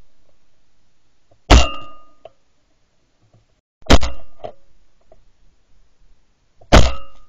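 Three shotgun shots from a Fabarm Axis Field over-and-under, heard from a camera mounted on the gun, each with a short metallic ring as it dies away. They come about a second and a half in, about four seconds in, and near the end.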